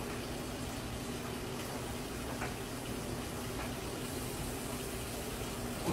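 Electric home treadmill running: a steady motor hum under the even whir of the moving belt, with a few faint light taps.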